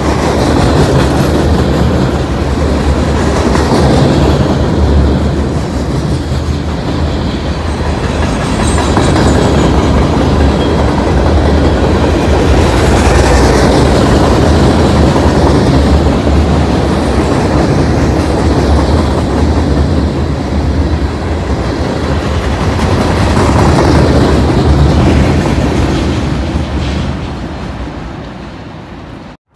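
Freight train cars rolling past at close range: a steady, loud rumble and clatter of steel wheels on the rails, dying away near the end.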